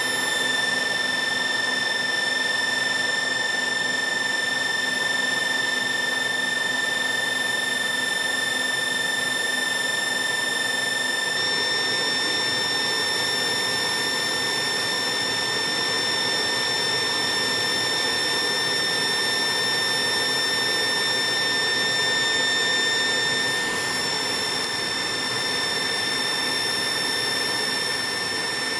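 Steady rushing air with a fixed high-pitched whine from the cooling of a 2 kW BLF189XRB FM broadcast amplifier running at full output. About a third of the way in the low rumble grows a little stronger.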